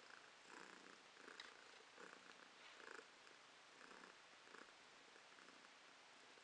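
Domestic cat purring faintly, in soft uneven pulses that die away near the end.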